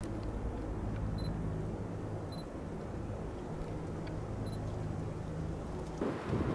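Steady low hum of a running motor, with three short high beeps.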